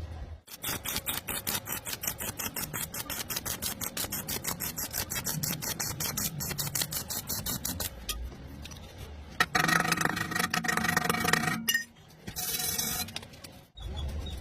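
Arc welding laid down in short, evenly spaced pulses, a rhythmic crackle of several bursts a second: a stitch technique for bridging a wide gap. Near the end comes a louder stretch with a steady pitched hum, then a shorter burst of hiss.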